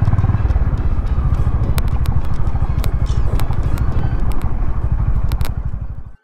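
Honda H'ness CB350's single-cylinder engine running steadily under way on a dirt track, with a low, even exhaust beat and occasional sharp clicks. The sound cuts off suddenly near the end.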